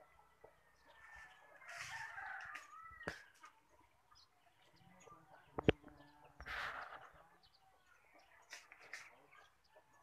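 A rooster crowing faintly, its call sliding in pitch about a second to three seconds in, amid soft rustling, with one sharp snap a little past halfway.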